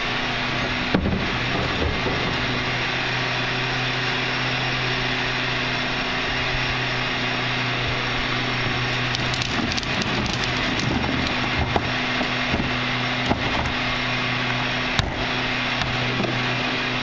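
Rear-load garbage truck standing and running steadily: a constant low engine hum under a broad, even hiss. A few light knocks come near the middle and again toward the end.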